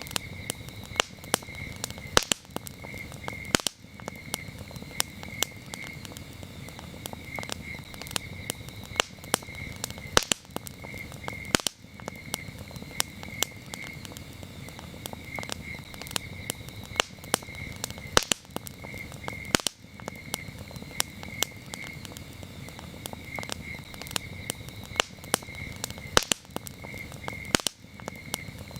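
Campfire crackling, with frequent sharp pops over a steady low rush of the flames, while crickets chirp in repeated short trains of high, even pulses.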